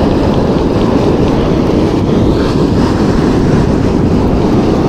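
Loud, steady wind buffeting the microphone over surf breaking on a beach.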